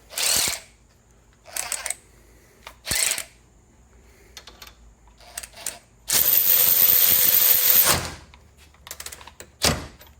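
DeWalt DCF513 cordless ratchet motor run in a few short bursts, then running steadily for about two seconds while driving a 3/4 inch bolt tight. It stops on its own once the bolt is as tight as it will go, about 70 ft-lb, without hammering on.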